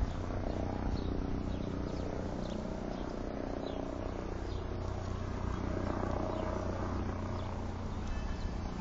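Outdoor ambience: a steady low hum with faint, short high-pitched chirps scattered through it.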